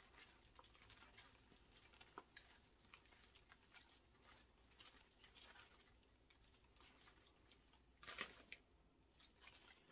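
Near silence with faint, scattered rustles and light clicks from a potted plant and its soil being handled, with a brief louder rustle about eight seconds in.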